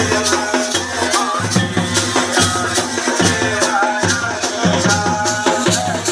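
Pahari tandi folk song music with a steady shaker-and-drum beat under a wavering melody line.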